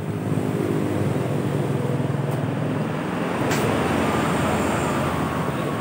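A motor running steadily with a fast, low pulsing, and a sharp click about three and a half seconds in.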